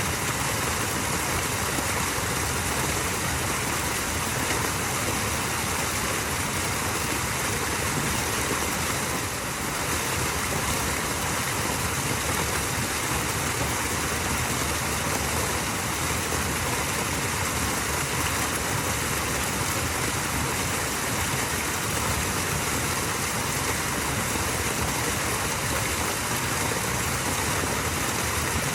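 Small waterfall splashing: an even, steady rush of falling water.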